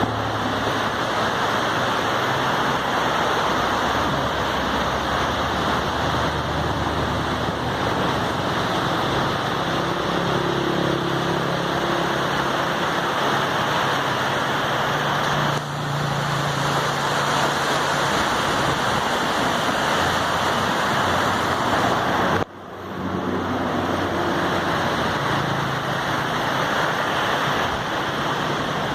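Swollen, fast-flowing river rushing steadily, with a faint low hum underneath. The sound drops out briefly about two-thirds of the way through and then returns.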